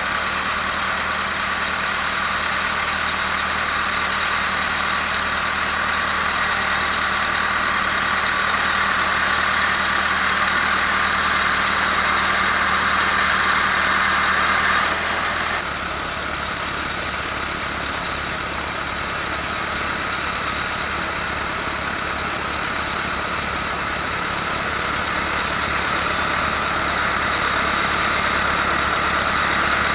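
Massey Ferguson 390 4WD tractor's diesel engine running steadily while it ploughs. About halfway through, the sound changes abruptly in tone.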